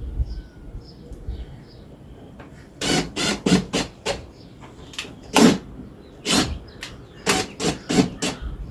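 A series of sharp knocks, about a dozen irregularly spaced over five seconds, starting about three seconds in, while a wooden planter box is being put together.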